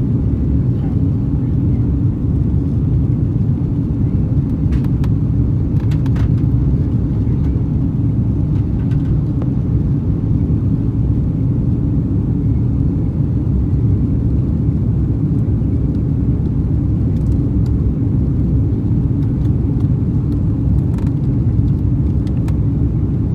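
Steady low rumble of engine and airflow noise in the cabin of an Airbus A340-600 climbing out after take-off, its four Rolls-Royce Trent 500 engines at climb power.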